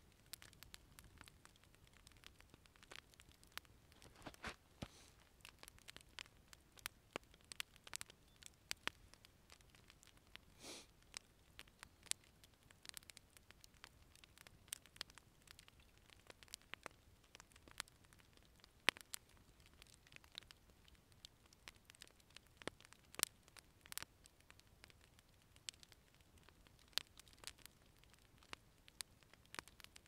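Wood fire crackling: irregular sharp pops and snaps, a few a second, some much louder than others, over otherwise faint background.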